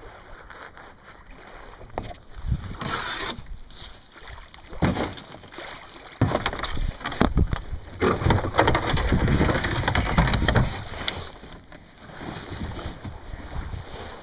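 Camera handling noise: irregular rustling, rubbing and bumping as the camera is jostled against fabric and webbing straps of gear being carried, loudest in a long stretch past the middle.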